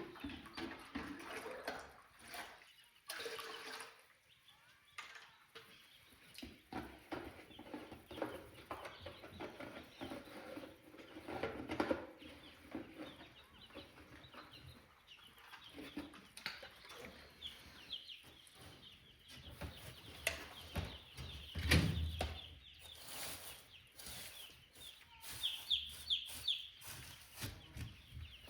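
Day-old Cornish Cross meat chicks peeping in a brooder, many short high chirps overlapping, with scattered knocks and one louder thump about two-thirds of the way through.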